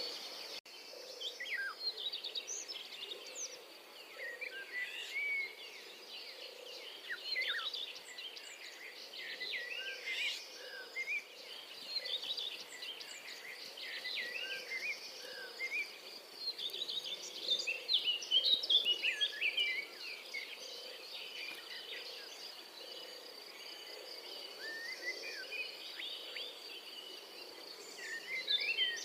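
Outdoor ambience of many birds chirping and twittering in quick short notes over a steady high insect drone.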